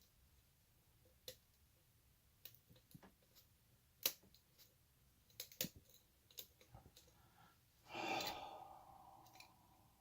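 Light, scattered clicks of a lock pick and tension wrench working the pins of a shutter lock, then a long sigh about eight seconds in.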